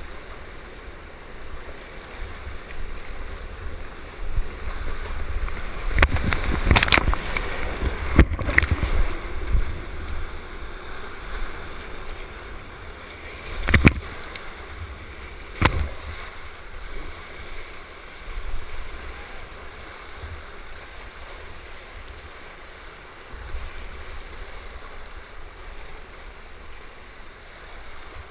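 Whitewater rapids rushing and splashing around a kayak, heard close to the water, with a few sharp knocks of water or paddle against the camera, the loudest two a little past halfway.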